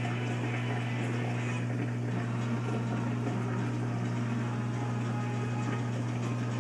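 Reef aquarium's pump running: a steady low hum under constant bubbling, rushing water from the circulation.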